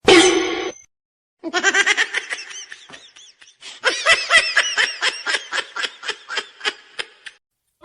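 Laughter: a short loud burst at the start, then after a pause a long run of rapid, high-pitched laughing pulses, several a second.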